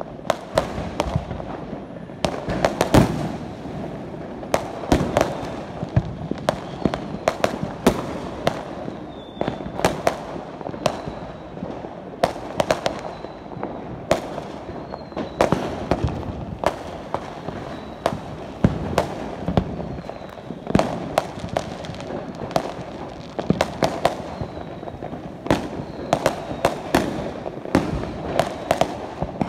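Fireworks and firecrackers going off all around: a dense, unbroken run of sharp bangs and pops, several a second, some much louder than others, over a constant background of distant crackle.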